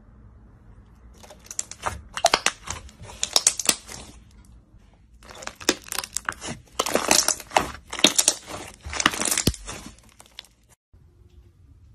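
Hands squeezing and kneading slime, giving rapid sticky crackling and popping clicks. The clicks come in two bursts of a few seconds each, with a short pause between.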